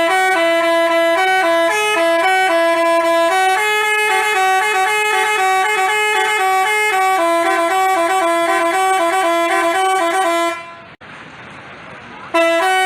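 Basuri telolet bus horn playing a tune, its several trumpets sounding quick stepping notes together. It stops about ten and a half seconds in and starts again near the end.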